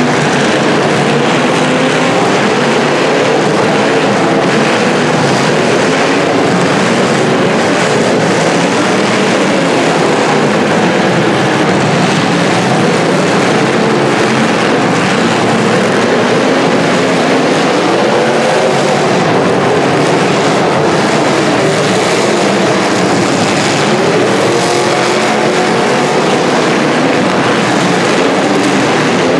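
Several demolition derby car engines revving up and down at once, making a loud, continuous overlapping din of engine noise.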